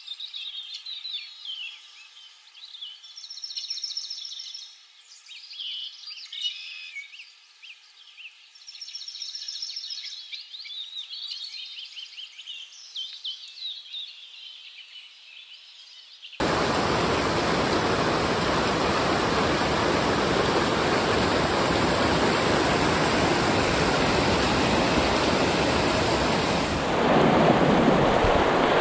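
Birds chirping and singing, thin and high with no low sound, for about the first sixteen seconds. Then a sudden cut to loud, steady rushing of white water in a rocky weir chute, heard from an inflatable kayak in the rapids, with a heavier low rumble of water or wind on the microphone near the end.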